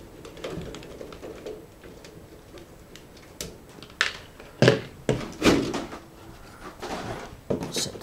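Ultra XBlaster sheet-metal computer case being handled as its side panel comes off: scattered clicks and knocks, the loudest cluster about four and a half to five and a half seconds in.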